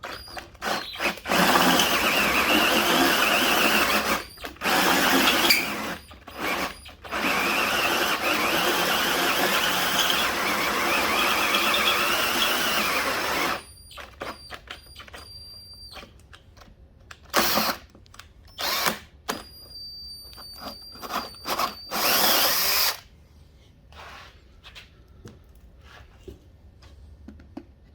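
Drill running a 1-1/8-inch hole saw into an aluminum LS valve cover. It cuts in long stretches, then in short bursts with a faint high whine between them. The cut is running dry without lube, and the softened aluminum is loading up the saw's teeth and making the cut difficult.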